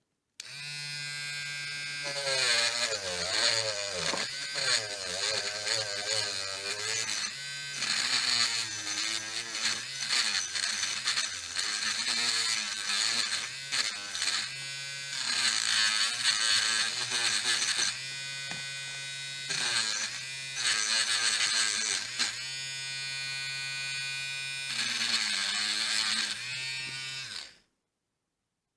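Small electric grinder with a metal wire brush running, its motor humming steadily and getting louder and scratchier each time the brush is pressed against the lock parts to scrub off oxidation. It starts just after the beginning and shuts off about a second before the end.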